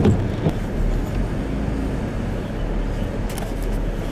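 A vehicle driving, heard as a steady low rumble of road and engine noise.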